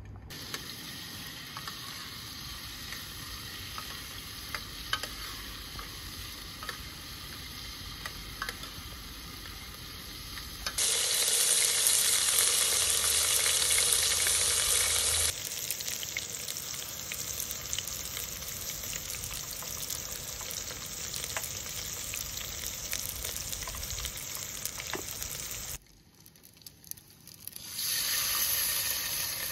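Meat chunks and garlic sizzling and crackling in hot oil in an aluminium pot, loudest for a few seconds about eleven seconds in. Near the end the sizzle stops briefly and a bowl of water is poured splashing into the pot.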